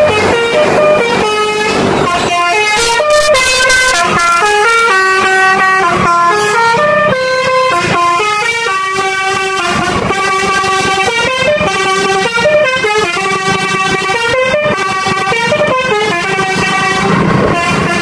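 A bus telolet basuri horn plays a melody of quick stepped notes, jumping up and down in pitch over and over. Engine and road noise runs underneath.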